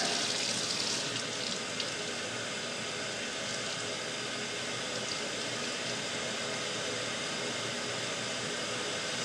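Water running steadily from a tap into a sink, a little louder in the first second.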